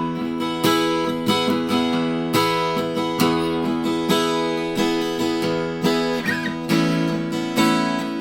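Small-bodied Chibson L-00 acoustic guitar strummed in chords, a fresh strum about every three-quarters of a second with the chord ringing on between, changing chord near the end.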